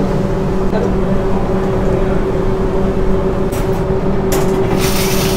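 Steady mechanical hum of restaurant kitchen machinery, with a few light clinks between about three and a half and five seconds in.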